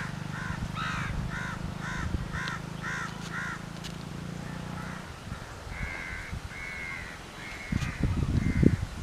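A crow cawing about eight times in quick succession, then giving four longer, flatter calls later on. A low steady hum lies underneath for the first half, and wind buffets the microphone with loud rumbling gusts near the end.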